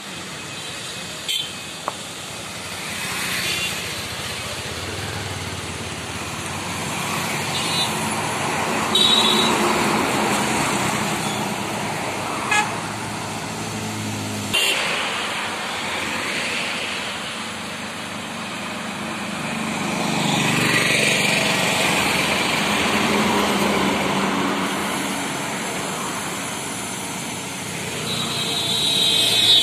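Highway traffic passing: lorries, cars and motorbikes going by in swells, with several short horn toots, the loudest near the end.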